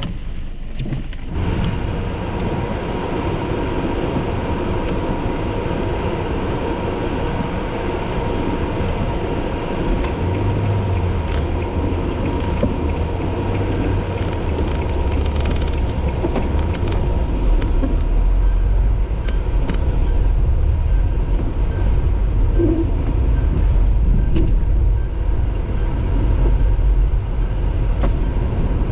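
Car driving through a snowstorm: steady engine and road rumble mixed with wind noise, the low rumble growing stronger after about ten seconds.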